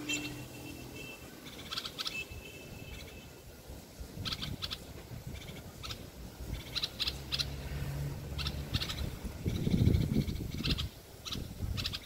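Caged common bulbul singing short phrases of a few quick notes, repeated every second or two. A low rumble swells about ten seconds in.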